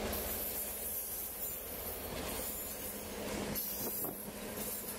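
Freight train of boxcars rolling past, wheels running over the rails, over a steady low hum from the diesel locomotive. Faint brief wheel squeals come now and then.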